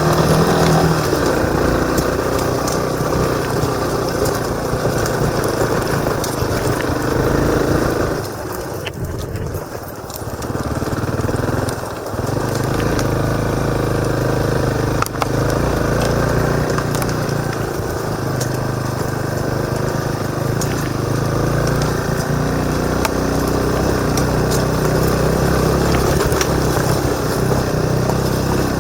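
Motorcycle engine running under way, heard from a helmet-mounted camera. It eases off for a couple of seconds about eight seconds in, dips again briefly, then picks back up. Scattered sharp clicks sound over it.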